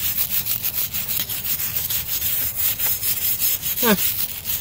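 Steel wire brush scrubbing a rusty cast iron weight plate in quick back-and-forth strokes, a dry scratchy rasp of bristles on iron as rust loosened by a soda soak comes off. About four seconds in there is a brief squeak, falling in pitch.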